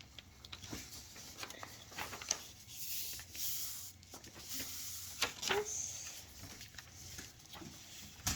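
Paper and cardboard pieces being handled and rubbed on a table, with scattered small taps and clicks and a longer rustling scrape about three seconds in.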